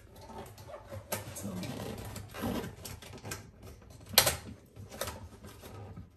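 Hands working a plastic zip tie behind a corrugated washing-machine drain hose and its valve connection: rustling and scattered clicks of plastic, with one sharp click about four seconds in.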